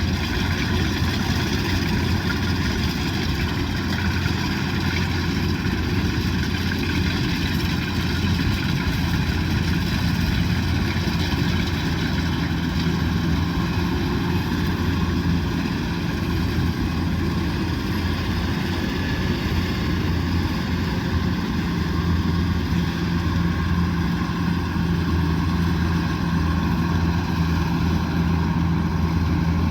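Kubota DC108X combine harvester's diesel engine running steadily, a continuous low drone that holds an even pitch and level throughout.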